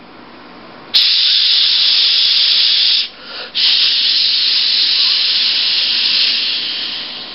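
Loud, steady hiss like escaping steam, starting abruptly about a second in. It breaks off for a moment near the middle, resumes, and slowly fades toward the end.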